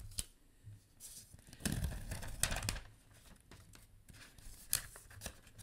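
Paper protective wrap being peeled and torn off a new iPad mini by hand, a ripping, crinkling rustle loudest about two seconds in, with a few sharp clicks of the paper and tablet being handled.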